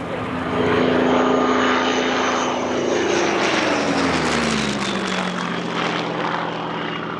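Piston-engined WWII propeller aircraft flying past, its engine note growing louder and then dropping in pitch as it goes by.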